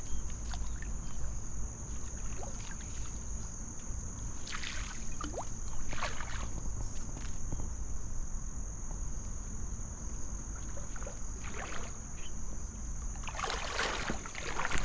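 Water splashing and sloshing in scattered bursts, with a longer, louder stretch of splashing near the end, over a steady high-pitched insect trill.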